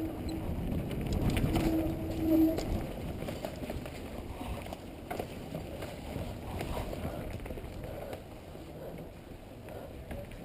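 Mountain bike running fast down a dirt forest trail: tyres on dirt, the bike rattling over bumps, and wind on the helmet-mounted microphone. A steady hum sounds twice in the first couple of seconds.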